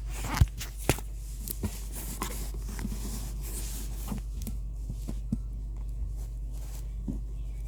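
Handling sounds of a package being opened with a multi-tool: a few sharp clicks in the first two seconds, then scattered softer taps and light scrapes, over a steady low hum.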